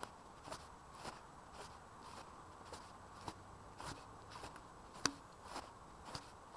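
Footsteps of a person walking at an even pace, about two steps a second, with one sharper knock about five seconds in.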